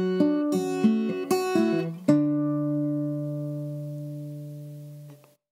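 1964 Martin 00-21NY nylon-string guitar fingerpicked in country-blues style. About two seconds in it ends on a final chord that rings and slowly fades, then is cut off near the end.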